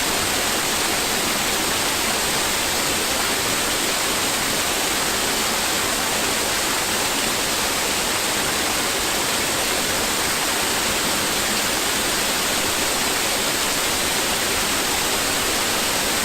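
Waterfall heard up close: a loud, steady rush of falling water that cuts in and out abruptly.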